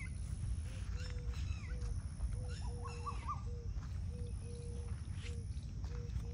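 Birds and other wild animals calling. A short, low note of one pitch repeats about twice a second, with higher chirps and falling whistles over it, above a steady low rumble.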